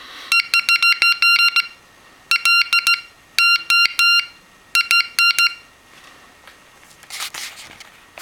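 Homebrew transistor Morse code practice oscillator sounding a steady high tone, keyed by hand in four groups of dots and dashes. The pitch holds steady on each key-down, showing very little frequency variation now that a transistor switch carries the current instead of the key. A short rustling noise comes near the end.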